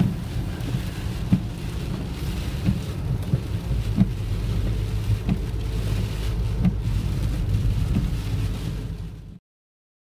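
Car-interior noise while driving on a rough country road: a steady low rumble and hiss, broken by about six short knocks a second or so apart as the car jolts over bumps. It cuts off abruptly near the end.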